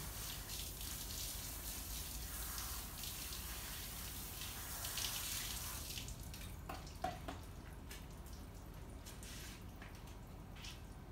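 Garden hose spraying water onto a wet dog's coat and the patio pavers, a steady hiss that stops about six seconds in. Afterwards only faint dripping and a few light taps remain.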